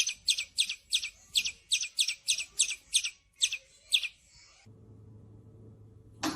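A bird chirping over and over, short high chirps about three a second, which stop about four seconds in; a faint low hum follows.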